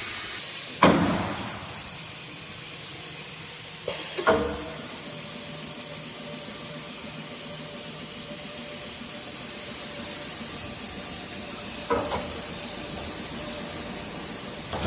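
ATC CNC router running while drilling: a steady high hiss, broken by three sharp knocks about a second, four seconds and twelve seconds in, the first the loudest.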